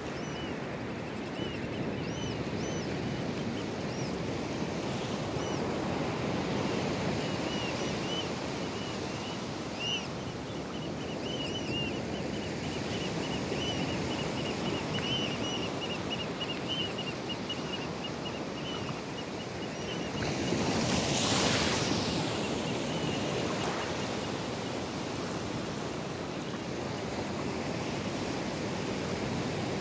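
Atlantic surf breaking and washing up the beach in a steady rush, with one wave surging up louder about two-thirds of the way through. A string of faint, high chirps runs through the first two-thirds.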